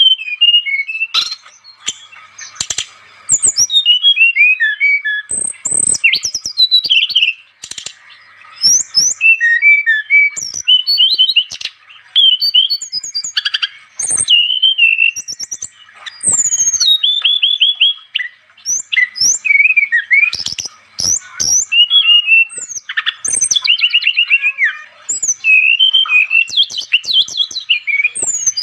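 Brown-chested jungle flycatcher (SRDC) singing without pause: rapid, varied whistled phrases, chirps and quick trills, with sharp clicks between some phrases.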